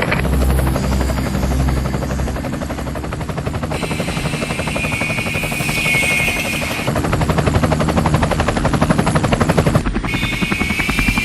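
Toy helicopters running: a fast, even rotor chop with a high whine that cuts in about four seconds in, drops out near seven seconds, and returns near the end.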